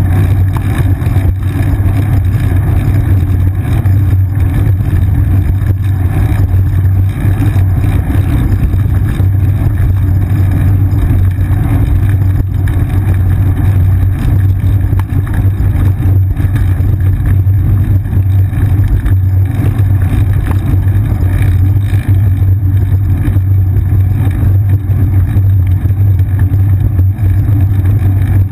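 A bicycle rolling along an asphalt path, heard through a seat-mounted action camera: a loud, steady low rumble of road vibration and wind, with frequent small knocks.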